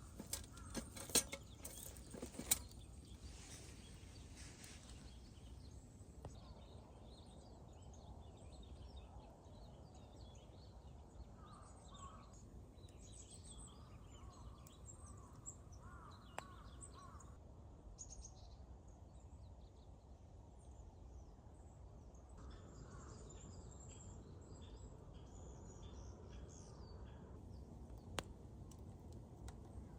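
Faint wild birds chirping and calling, scattered short calls coming and going through the middle of the stretch over a low steady outdoor hum. A few sharp clicks near the start.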